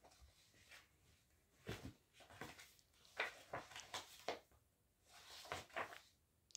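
Faint rustling and flapping of a large picture book's paper pages being turned and handled, several short rustles in a row.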